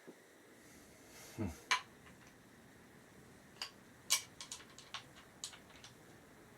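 Scattered clicks and light knocks of bench parts and hardware being handled and fitted during assembly, with a short sound dropping in pitch about a second and a half in and a run of small clicks near the middle.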